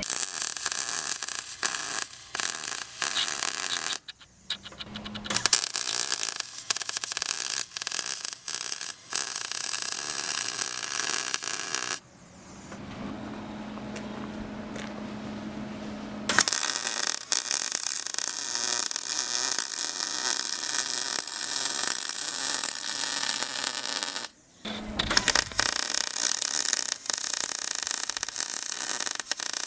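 Arc welding on the steel hinges of a tractor-trailer: a steady crackle and hiss in four long runs. The arc breaks off about 4, 12 and 24 seconds in, the longest pause lasting about four seconds, and a steady low hum is heard in the pauses.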